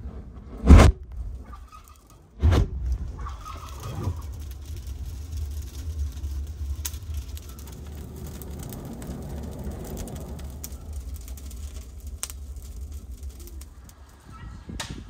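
Dry twigs catching fire inside a tandoor, with a steady low rumble and light crackling as they start to burn. Two sharp knocks come in the first few seconds.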